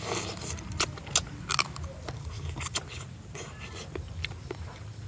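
Eating sounds: a metal spoon and bamboo chopsticks clicking and scraping, along with chewing. The clicks are sharp and irregular, the loudest about a second and two and a half seconds in, over a steady low hum.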